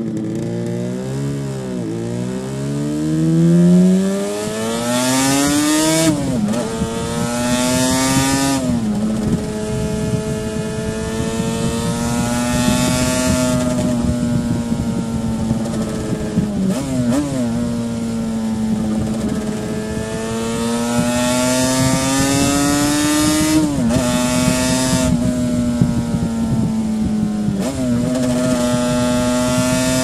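1984 Yamaha RD500's liquid-cooled 499 cc V4 two-stroke engine pulling under way, its pitch climbing and then dropping sharply at each of several gear changes, holding steadier between them. Wind rushes past the microphone at speed.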